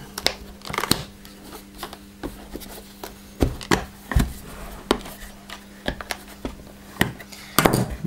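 Plastic catches on a Dyson DC08 motor housing being prised up with a screwdriver: irregular sharp clicks and knocks of plastic, one every second or so, over a faint steady hum.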